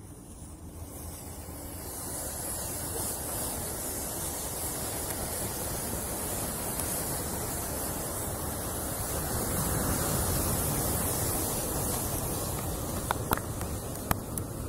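A large pile of bundled matchsticks igniting in a chain reaction: a hissing rush of flaring match heads that swells into the steady noise of a big fire, loudest about ten seconds in. A few sharp cracks come near the end.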